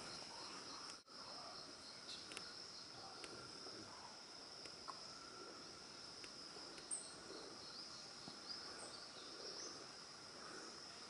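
Faint forest ambience: a steady, high-pitched drone of insects, with a few short bird chirps. The sound briefly drops out about a second in.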